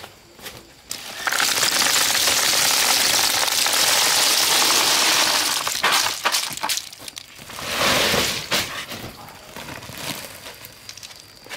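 Dried corn kernels poured from a plastic basin into a woven polypropylene sack: a loud rushing patter starting about a second in and lasting some four and a half seconds, then scattered clicks and a shorter burst about eight seconds in.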